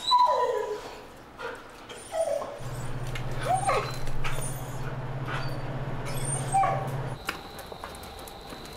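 A dog whining and whimpering in several short cries, the loudest a falling whine right at the start. A steady low hum runs through the middle while the elevator is moving.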